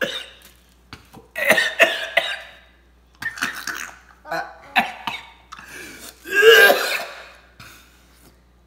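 A man coughing and clearing his throat in several bouts, the loudest about two-thirds of the way through, gagging on a dog-food-flavoured Bean Boozled jelly bean.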